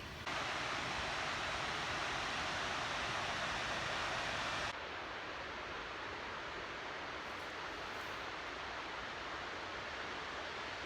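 Steady rushing roar of the Dynjandi waterfall, stepping up sharply just after the start and dropping back to a lower level about halfway through.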